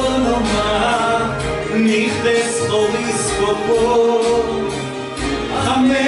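A man singing a Greek song into a microphone over steady instrumental accompaniment.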